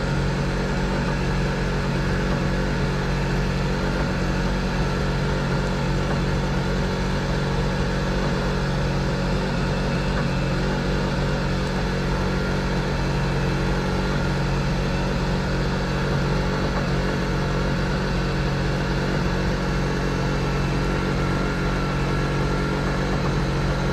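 A small engine on a fishing boat running steadily at one even speed, a constant hum with no change in pitch or level.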